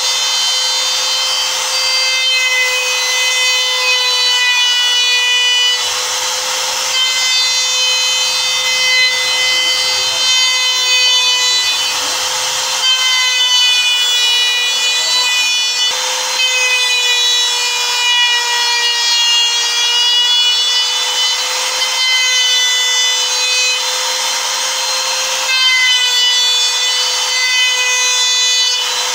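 Compact handheld trim router running at full speed while shaping the edge of a wooden board. It makes a steady high-pitched whine with a rasping cutting hiss, and the pitch wavers slightly now and then.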